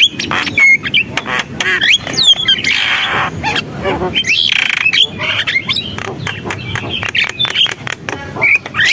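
Javan myna (jalak kebo) singing: a fast, unbroken jumble of harsh grating notes, sharp clicks and whistled glides that bend up and down.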